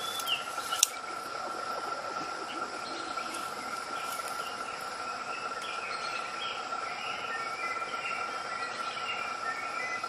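Natural outdoor ambience: a steady single-pitched insect drone under scattered short bird chirps, with two sharp, louder calls in the first second.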